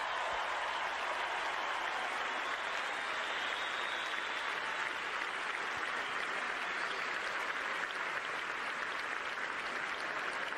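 A large stadium crowd applauding steadily.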